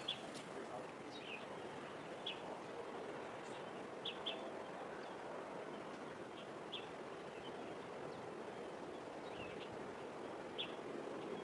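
Small birds giving short, high chirps every second or so, over a faint, steady background of distant harbour noise.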